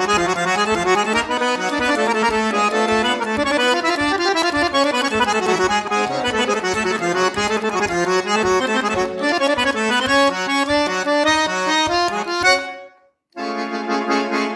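Piano accordion played solo: a fast, running melody over a steady, even bass beat. Near the end the playing breaks off for about half a second and comes back as a single held chord.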